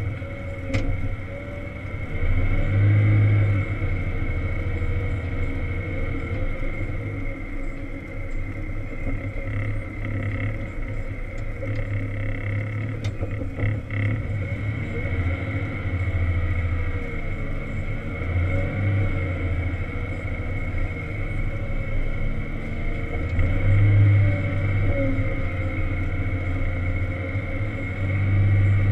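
Volvo L70 wheel loader's diesel engine running under load, heard from inside the cab, swelling in repeated surges as the loader pushes snow. A steady high whine runs underneath.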